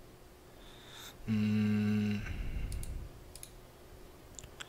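A man hums a brief steady "hmm" about a second in, then a computer mouse clicks a few times, mostly in quick pairs.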